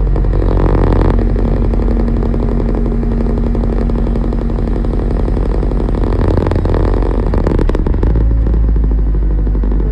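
Skid steer engine running steadily at work, a low continuous drone with a rapid pulse; for the first few seconds a steady higher hum runs over it.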